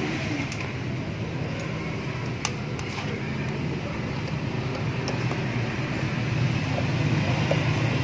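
Steady low mechanical hum from a running machine, with a few light clicks as wires and plastic parts are handled.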